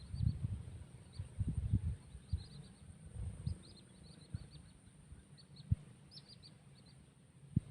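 Small birds chirping in short, quick, high-pitched runs, over irregular low rumbling bumps on the microphone and a steady high hum.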